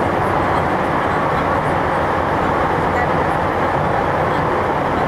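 Nagoya Municipal Subway N3000 series IGBT-VVVF electric train running at steady speed, heard from inside the car: an even rumble of wheels on rail that holds level throughout.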